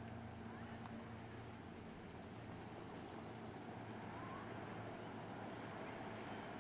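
Motorboat engine droning faintly and steadily from across the water as it tows tubes. A high, rapid trill sounds for about two seconds, starting a second and a half in.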